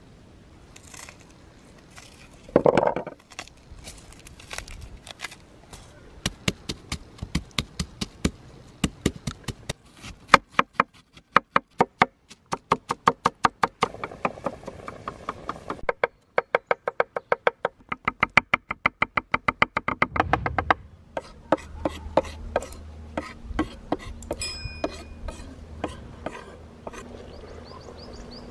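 A knife chopping on a wooden cutting board: runs of quick, sharp strokes, at times about five a second, with short pauses between runs.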